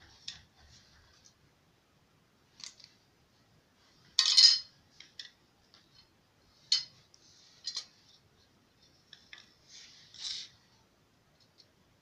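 Metal spoons and a knife clinking and scraping as they are handled and set down on a tiled floor: a handful of separate short, bright clinks, the loudest and longest about four seconds in.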